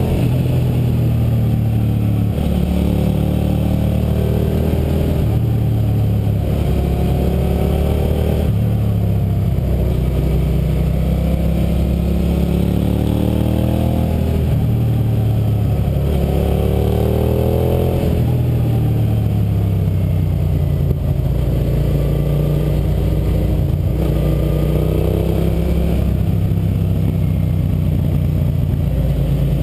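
A Suzuki SV650's V-twin engine pulling the bike along a twisting road. Its pitch climbs over a second or two and drops back, again and again, as the throttle opens and closes through the bends.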